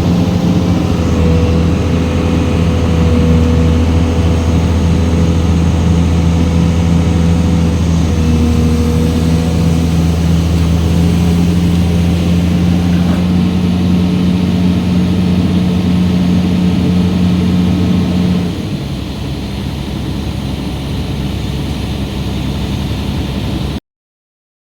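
Excavator's diesel engine running steadily at working revs, with a thin steady whine above the engine note; about three quarters of the way through the engine eases to a lower, quieter note, and the sound then cuts off abruptly.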